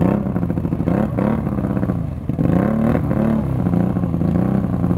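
ATV (four-wheeler) engine revving up and down several times, with a short drop a little past halfway, as its wheels spin in wet sand and mud. The machine is stuck and being pushed out.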